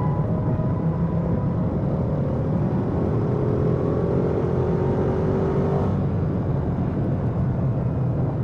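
Ducati Panigale V2's 955 cc Superquadro V-twin with its stock exhaust, running steadily under way, with a faint higher tone over it that stops about six seconds in.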